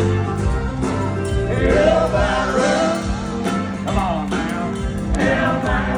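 Live country band music heard from within the audience: male lead singing over electric bass and a drum kit with a steady beat.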